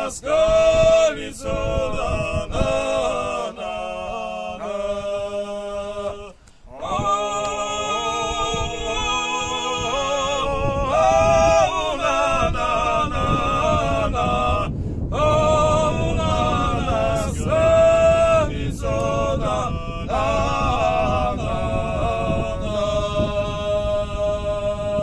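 Three men singing a Georgian folk song a cappella together in male voices, in phrases with short breaks for breath, ending on a long held note.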